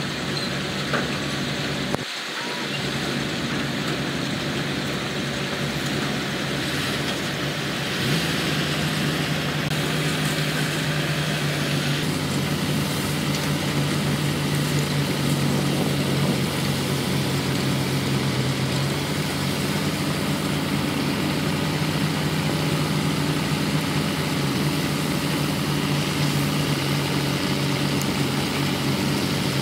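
Diesel engines of heavy construction machinery running steadily, with a low hum that settles to an even pitch about eight seconds in.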